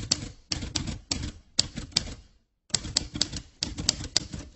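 Typewriter keys striking in a quick, irregular run, used as the sound of on-screen text typing out, with a short pause about two and a half seconds in.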